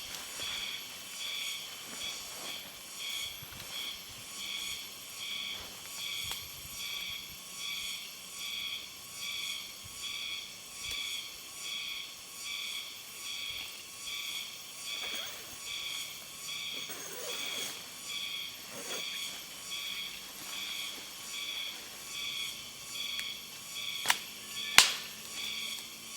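Insects, likely crickets, chirping in a steady, high-pitched pulse a little more than once a second. Two sharp clicks sound near the end.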